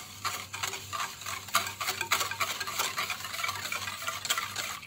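Wire whisk stirring a thin liquid mixture of powdered milk, sugar and yeast in a bowl, the wires clicking and scraping against the bowl in quick, irregular strokes.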